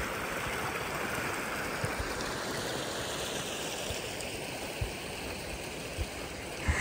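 Steady rushing of running water, with a few soft low thumps.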